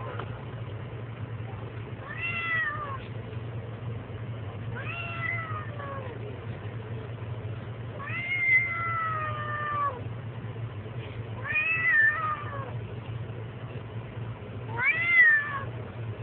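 Black kitten meowing five times, about every three seconds, each call falling in pitch, the middle one drawn out longest; its fearful 'go away' protest at a person near its cage. A steady low hum runs underneath.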